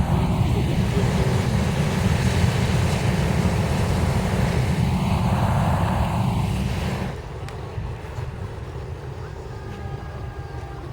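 Hot air balloon's propane burner firing, a loud steady rumble that cuts off about seven seconds in.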